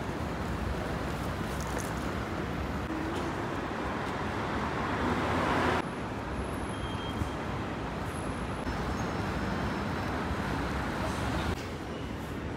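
Street traffic noise: a steady wash of road vehicles that swells about halfway through, then changes abruptly twice where the shots cut.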